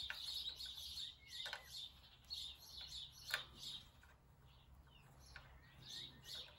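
Small birds chirping steadily in the background, with a few sharp metallic clicks from an Allen key working the bolts of a motorcycle brake guard; the loudest click comes about three seconds in.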